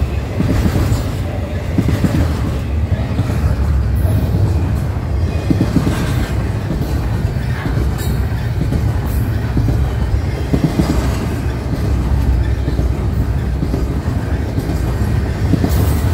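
Double-stack intermodal container train rolling past: a steady rumble of steel wheels on the rails with scattered clicks and clacks as the well cars go by.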